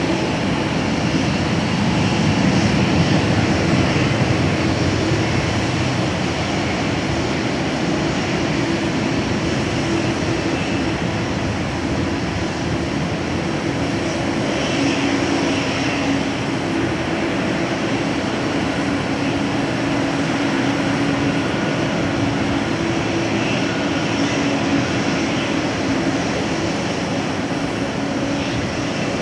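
Boeing 777's twin jet engines at taxi power: a steady rumble and hiss with a low hum running through it.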